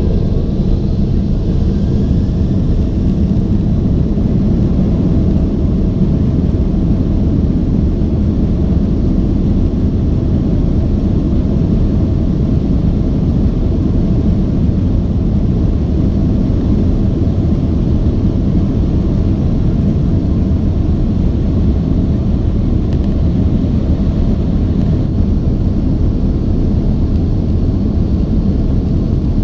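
Steady, loud rumble of a Boeing 767-400ER's General Electric CF6 turbofan engines, heard inside the passenger cabin.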